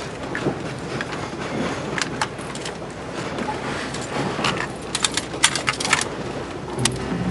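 Steady rushing background noise with irregular sharp clicks and knocks scattered through it; music begins right at the end.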